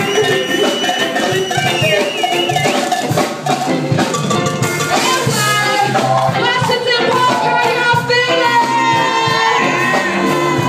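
Live reggae band playing, with a shaker keeping time and a high, wavering melody line over the band.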